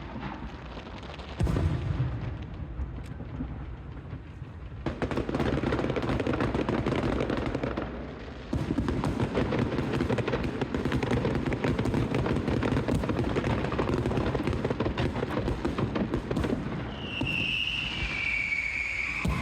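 Strings of firecrackers going off in a fast, continuous crackle, with a loud jump about a second and a half in and a much denser crackle from about five seconds on. Near the end a high, wavering tone falls in pitch over the crackling.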